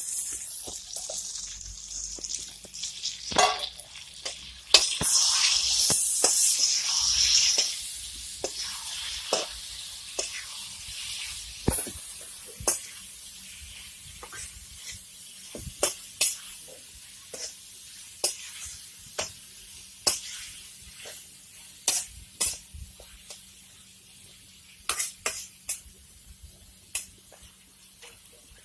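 Food sizzling in hot oil in a pan. The sizzle swells loud for a few seconds near the start, then settles to a quieter hiss, while a spatula knocks and scrapes against the pan every second or two.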